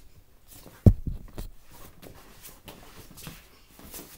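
One loud thump about a second in, then lighter knocks and footfalls as a child climbs over a padded recliner and steps toward a plastic step stool.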